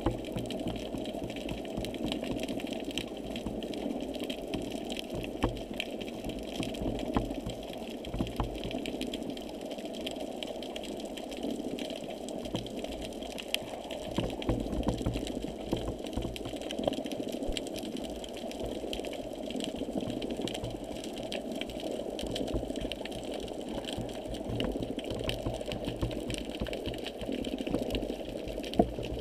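Steady, muffled underwater rushing and mechanical whirring heard through a GoPro's waterproof housing, with scattered faint clicks.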